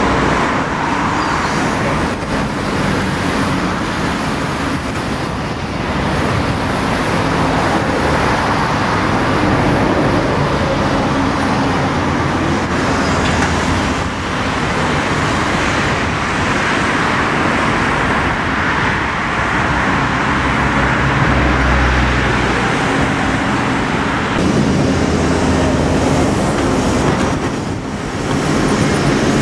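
Diesel engine of a Daewoo 255LC-V hydraulic excavator running as a steady drone while it digs soil out of a trench.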